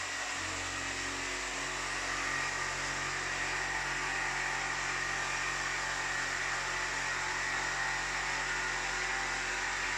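Steady mechanical whir and hum of a running motor or fan, even in level.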